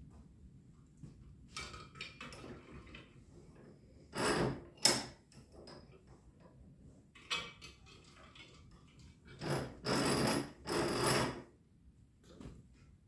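Intermittent clattering and rattling of small metal parts and tools being handled, in short bursts with a sharp click near the middle and the loudest rattling near the end.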